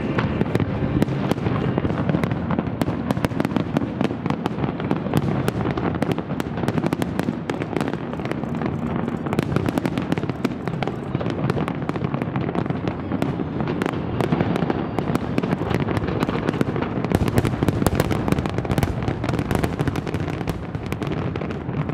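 Fireworks display: aerial shells bursting in a continuous barrage of bangs and dense crackling, which thickens for a few seconds after about 17 seconds in.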